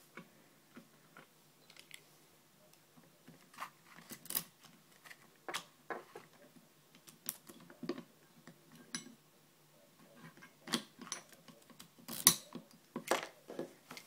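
Irregular small clicks and knocks from hands handling a Mul-T-Lock dimple padlock clamped in a vise, with the loudest knock about twelve seconds in.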